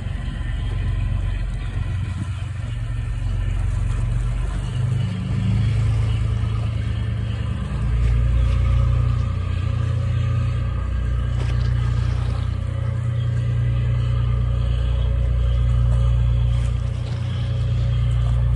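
Utility landing craft's engines running steadily with a deep rumble, growing a little louder about halfway through.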